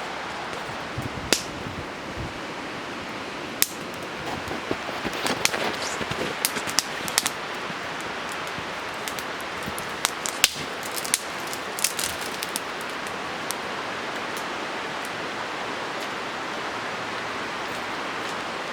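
Steady rush of a fast-flowing river, with scattered sharp clicks and snaps over it, clustered in the first two thirds.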